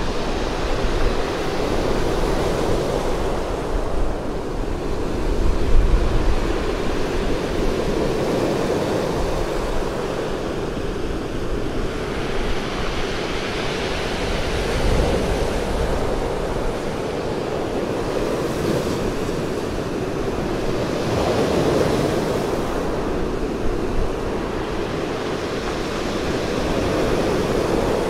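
Sea surf breaking and washing up a pebble beach, swelling and easing every several seconds. Wind rumbles on the microphone at times, loudest about six seconds in.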